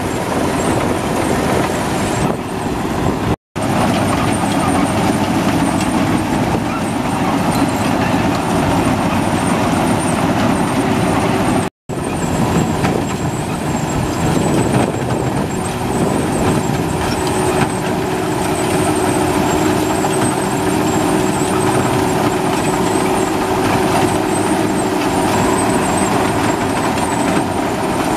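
Maxxi Bimo rice combine harvester running steadily as it cuts and threshes flattened (lodged) rice, a dense mechanical din with a faint steady whine on top. The sound breaks off for an instant twice, once a few seconds in and again about twelve seconds in.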